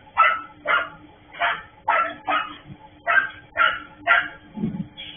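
A dog barking repeatedly, about nine short barks in quick succession, over a faint steady hum.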